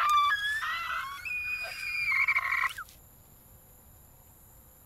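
A man crying in a high, wavering wail that stops about three seconds in.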